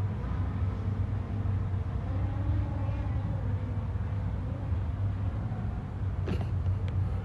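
Strong gusting wind buffeting the microphone: a steady low rumble, with a sharp click about six seconds in.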